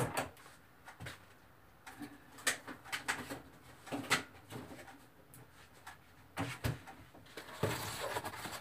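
Scattered light knocks and clicks of kitchen handling as someone fetches a carton of eggs, with a longer rustling stretch near the end as the egg carton is brought back.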